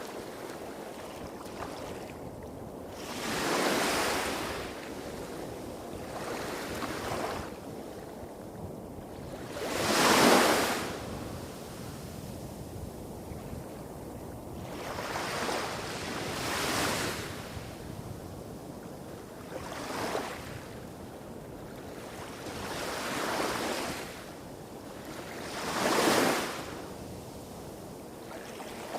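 Small waves breaking and washing up a beach, each one swelling and fading over a couple of seconds, about seven in all, the strongest about a third of the way in and near the end. A low rumble of surf on rocks further off runs beneath them.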